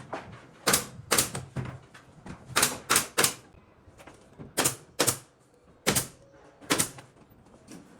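Nails being driven into wooden ceiling boards: about ten sharp, separate strikes, in irregular groups of one to three with short pauses between.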